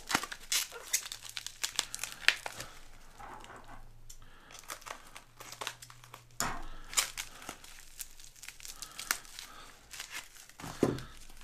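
Clear plastic wrapping crinkling and tearing as it is pulled off paper-wrapped penny rolls by hand, in irregular sharp crackles.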